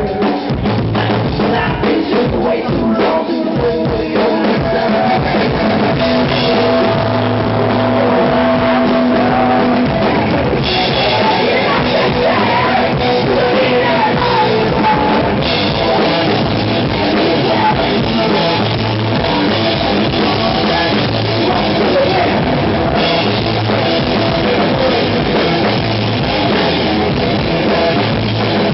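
Live rock band playing: electric guitars and a drum kit, loud and continuous.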